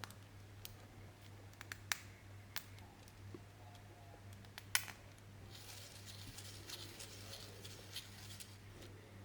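Scattered light clicks and taps of 3D-printed plastic parts being handled, with a stretch of quick, faint clicking from about five and a half to eight seconds in. A steady low hum runs underneath.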